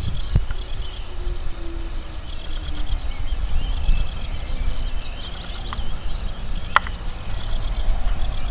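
Low rumble of a distant Boeing 737-800's CFM56 jet engines at takeoff power, mixed with wind on the microphone. Birds chirp throughout, and a sharp click comes nearly seven seconds in.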